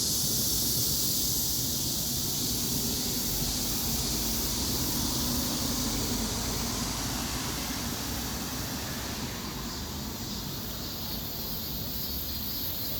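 Steady outdoor ambience: a continuous high hiss over a low rumble, easing slightly in level about halfway through.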